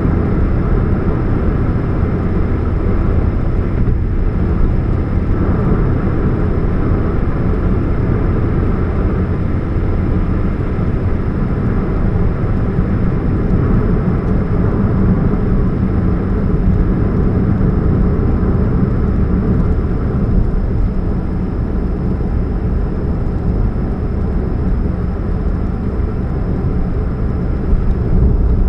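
2013 Chevrolet Spark running with a loud, steady, low drone and hum, the humming sound that the owner puts down to a catalytic converter leak.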